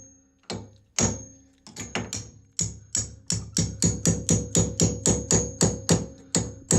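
Hammer striking a 5 mm pin punch to drive out the pins that join the sections of a Stannah 260 curved stairlift rail. Each strike gives a metallic ring; the strikes come a few at a time at first, then quicken to a steady run of about three a second.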